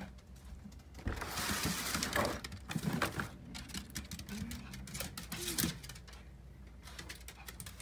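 Rustling and crinkling of paper and plastic bags, with scattered light clicks and knocks, as things are moved about in a pile of clutter. The crinkling is loudest for about a second, starting a second in.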